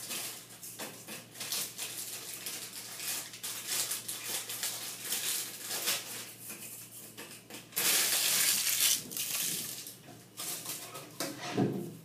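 Ritz crackers being crushed and broken by hand, a run of dry crunches and crackles, with a louder, longer burst of crackling about eight seconds in.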